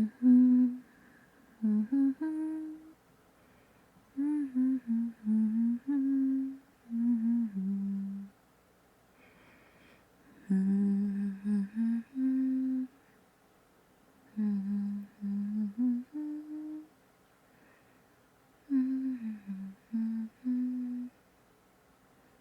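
A woman humming a tune to herself in about six short phrases, the melody stepping up and down, with pauses of a second or two between phrases.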